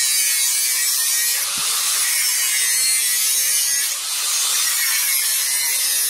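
Angle grinder grinding the edge of a forged steel gauntlet plate: a steady high-pitched hiss of the disc against the steel, easing briefly about four seconds in as the piece is shifted, then biting again.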